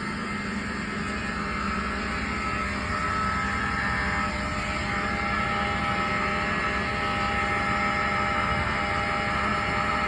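Fire alarm sounding loudly and without a break, a steady ringing tone over a harsh noisy texture.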